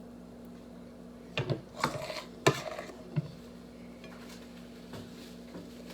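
Metal teaspoon scraping and clinking against the bowl and plate while spooning filling into a deviled egg half: a few short clinks and scrapes in the middle, over a steady low hum.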